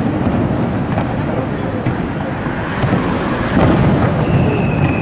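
Aerial fireworks shells bursting, their booms rolling into a continuous low rumble like thunder, with a few sharp cracks. A thin, slightly falling whistle from a whistling shell starts near the end.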